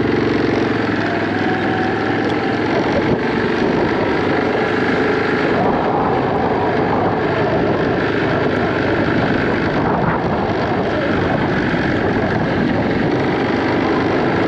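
A vehicle engine running steadily while driving, with some wind noise on the microphone.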